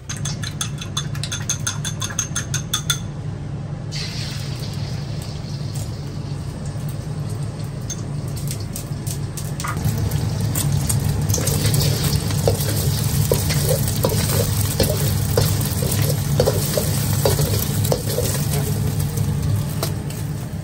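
Beaten egg sizzling in hot oil in a wok, the sizzle starting about four seconds in and growing louder from about ten seconds. In the second half a metal spatula scrapes and knocks against the wok as the egg is stirred. A rapid run of clicks in the first three seconds and a steady low hum run underneath.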